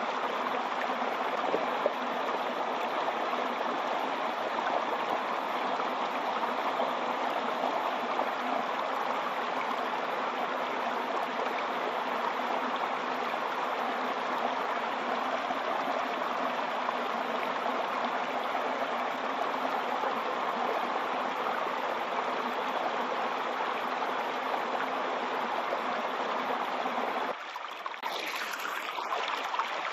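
Waterfall: a steady, even rush of falling water. Near the end it switches abruptly to a thinner rush with less low end.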